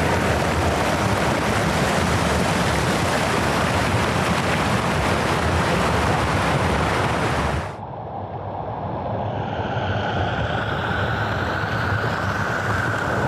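Waterfall water rushing loudly. About two-thirds of the way through it cuts to softer, duller rushing water, joined by a steady high-pitched drone that slowly grows louder.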